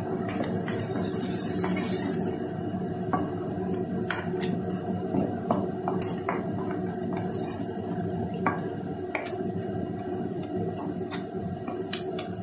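A spatula stirring crab pieces in masala around a steel kadai, scraping and knocking against the pan in scattered clicks, over the steady sizzle of the frying mixture. A brief louder hiss comes about half a second in.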